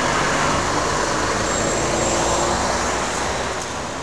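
Road traffic noise: a passing vehicle's steady rush that swells, holds, then slowly fades near the end.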